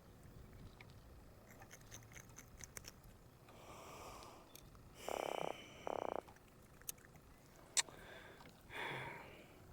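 Atlantic croaker croaking while held out of the water: two short, loud, buzzy croaks about five and six seconds in. Scattered light clicks of tackle being handled come between them.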